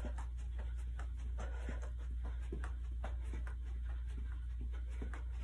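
Quick, light footfalls of butt kicks on a carpeted floor: soft thuds in an even, rapid rhythm, over a steady low hum.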